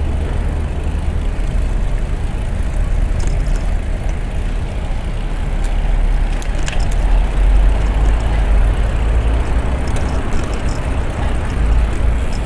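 Steady low rumble of riding a Brompton folding bicycle: wind on the microphone and tyre noise, with road traffic mixed in and a few faint ticks.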